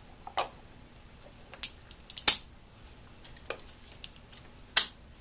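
Sharp little clicks and snaps of spark plug wires being handled and pushed onto the cap of a Bosch front-plate distributor. There are about eight, spaced irregularly, and the loudest comes a little past two seconds in.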